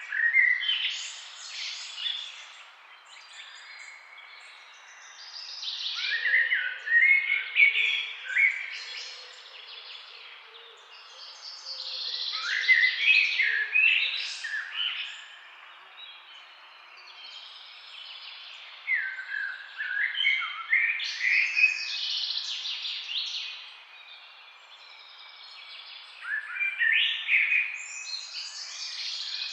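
Songbirds singing in bursts of quick, sweeping high-pitched phrases, about every six or seven seconds, over a steady faint background hiss.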